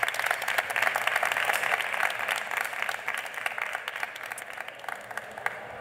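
Audience applauding: many hands clapping, strongest in the first couple of seconds, then thinning out and fading near the end.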